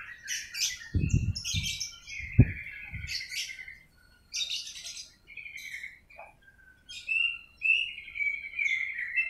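Small birds chirping and twittering over and over. A few low thumps come between one and three seconds in, the sharpest and loudest at about two and a half seconds.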